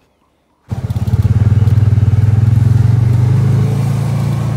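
Utility vehicle's engine running steadily under way, heard from the driver's seat, with a fast even low pulsing. It cuts in abruptly a little under a second in and eases off slightly near the end.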